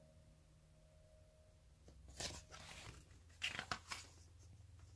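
Pages of a photobook being turned by hand: a papery swish about two seconds in, then a quick run of sharper rustles and flaps of the paper a second later.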